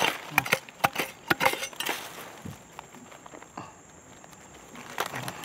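Digging tool striking and scraping hard, dry soil and roots at the base of a tree: a quick run of sharp chopping strikes in the first two seconds, then only a few scattered scrapes and knocks.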